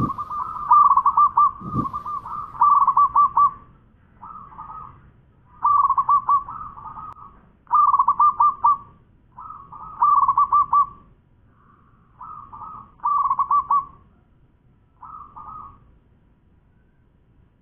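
Zebra dove (perkutut) singing: phrase after phrase of rapid, rolling coo notes, with short pauses between bouts. A low thump sounds about two seconds in.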